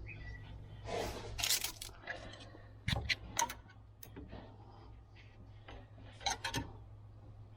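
Scattered clicks, scrapes and rustling of hands and tools working inside a skid steer's engine bay, with a few louder knocks, over a steady low hum.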